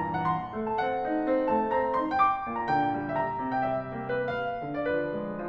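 Classical piano music playing as a soundtrack, a continuous run of overlapping melodic notes.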